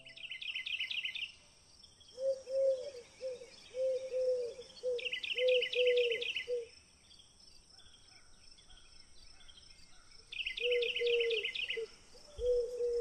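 Birds calling in woodland: a high, rapid trill of about a second comes three times, over runs of short, lower, arched notes. A faint steady high insect hiss lies under it all.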